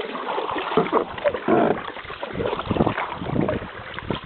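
Kayak paddles splashing in river water: an irregular run of splashes and sloshing, loudest about a second and a half in.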